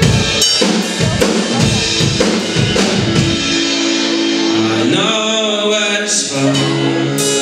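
Live acoustic guitar and drum kit playing together, with bass drum and drum hits through the first few seconds and then held guitar chords. A man's voice comes in singing about five seconds in.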